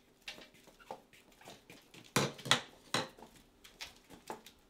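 Hard plastic telephone handset clattering and knocking against a countertop as it is fumbled: a string of clicks and knocks, with the loudest three close together about two seconds in.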